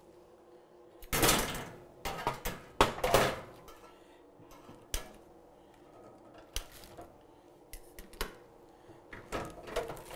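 Chrome wire cooking grate of a Coleman propane camp stove being unwrapped and handled: the metal grate clinks and rattles against the stove while its plastic packaging crinkles. A string of sharp clicks and clatters, loudest about one second and three seconds in, then lighter scattered clicks.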